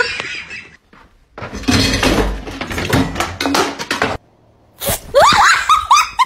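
A loud clattering crash of things breaking and falling, with many sharp knocks over about three seconds. Near the end come several short high-pitched cries that rise and fall.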